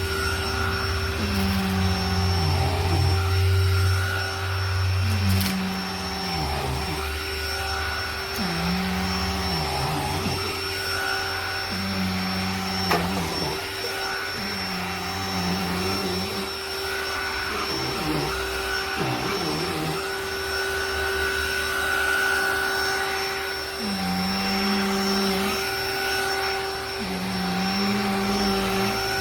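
Cordless handheld vacuum running steadily with a high motor whine, joined about every two seconds by a lower hum that rises and falls back, as the vacuum is worked back and forth in strokes.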